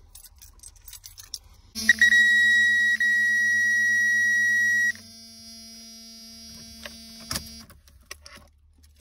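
Power Probe circuit tester giving a loud, steady buzzer tone for about three seconds as its tip touches a live wire in the radio harness, signalling 12-volt power with the key on. It cuts off suddenly, a fainter steady tone carries on for a few more seconds, and there is a sharp click near the end.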